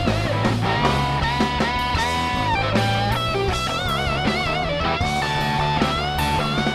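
Live rock band: a Les Paul-style electric guitar plays a lead line of long sustained notes with wide vibrato and bends, over electric bass and a drum kit with cymbals.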